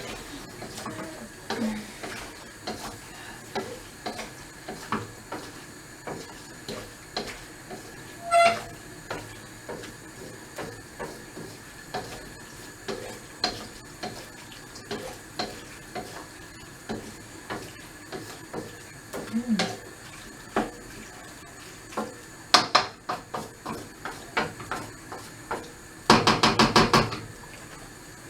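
A chicken noodle stir fry being stirred in a pan: a utensil clicking and knocking against the pan at irregular intervals, with a light sizzle. Near the end comes a quick run of loud clattering strikes against the pan.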